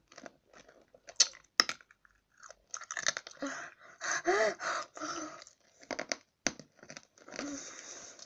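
A boy's mouth noises: chewing and crunching, with two sharp clicks about a second in. Short strained groans follow in the middle and near the end, a reaction to the sourness of the candies.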